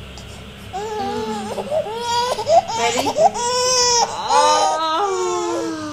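Infant crying: a string of high, wavering wails that starts about a second in.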